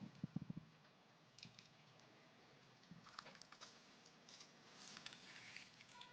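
Near silence: room tone with a few soft low thuds just after the start and faint scattered clicks.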